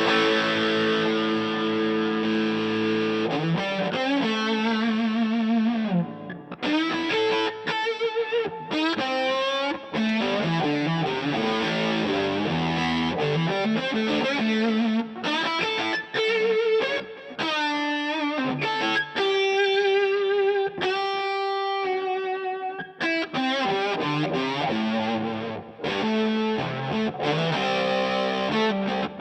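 Electric guitar played through a DVII guitar amp with a distortion pedal: a chord held and left ringing for about three seconds, then single-note riffs and lead lines with wavering, vibrato notes and a long held high note about three-quarters of the way through.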